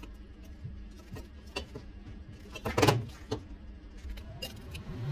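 Scattered metallic clinks and knocks of metal railing parts being handled, the loudest a clank about three seconds in, over a low steady hum.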